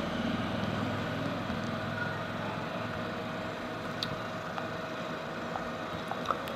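Steady background hum and hiss with a faint steady tone, broken by a few faint clicks about four seconds in and near the end.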